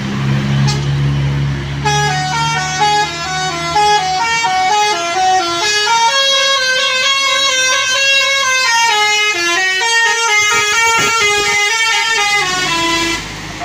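Telolet basuri musical bus horn playing a quick tune of stepped notes, which stops near the end. It is preceded by about two seconds of a low steady drone.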